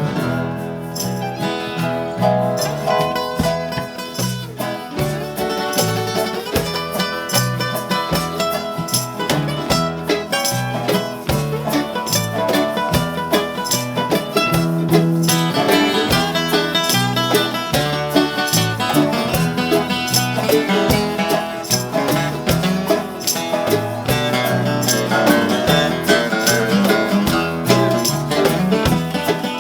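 A band plays an instrumental passage: guitars over a bass line and a steady drum beat.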